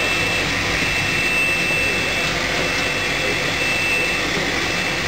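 Rotary glass-bottle wine filling machine running: a steady loud machine hiss with a thin high whine that fades in and out.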